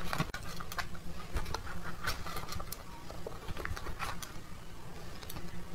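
Clear plastic tub crinkling and chopsticks scraping as saucy marinated food is pushed and tipped out onto a plate: a string of irregular short clicks, crackles and wet slides over a faint steady low hum.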